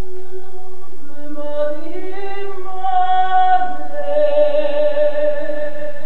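A woman singing a slow melody in long held notes, the pitch gliding gently between them.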